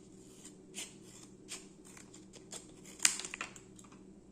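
Scissors cutting into plastic packaging: a few scattered crisp snips and crinkles, then a louder quick cluster of them about three seconds in.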